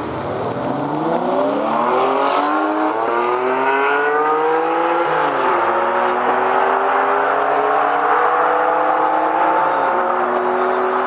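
Ferrari 599 GTB Fiorano's tuned V12 accelerating at full throttle. The pitch climbs steeply, drops at an upshift about five seconds in, climbs again, and drops at another upshift near the end.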